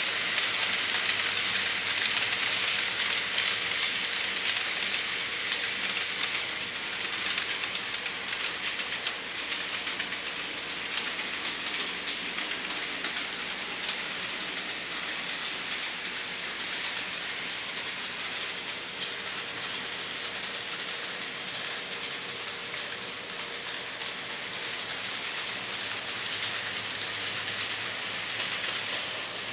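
Model trains running on a layout: a steady fine rattling hiss of small wheels on the track, louder at first, easing off in the middle and building again near the end.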